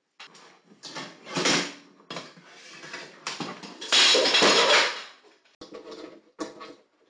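A cooking pan crashing off a kitchen worktop onto the floor: a string of clattering knocks, loudest for about a second some four seconds in, then a few smaller knocks.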